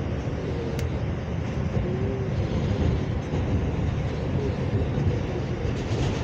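New York City 4-train subway car running on the track, heard from inside the car as a steady, heavy rumble. There is one sharp click about a second in.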